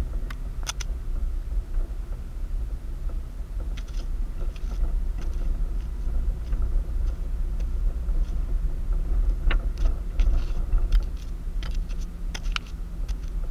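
A car driving on a town street, heard from inside the cabin: a steady low road and engine rumble, with light clicks and rattles at irregular moments.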